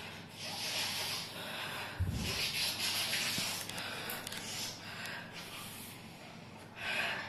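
A person sniffing hard through the nose again and again, drawing in air through a cloth held over the face: inhaling a drug. There are about five long, hissing sniffs, with a soft thump about two seconds in.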